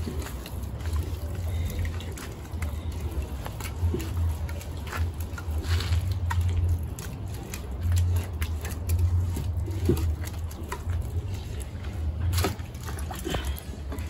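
Water sloshing and trickling, with scattered light clicks and knocks over a low, uneven rumble.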